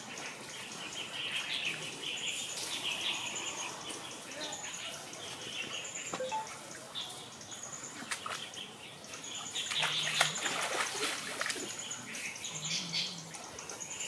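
Small birds calling with short, high, pulsed chirps every second or two, with bursts of dry rustling among leaves.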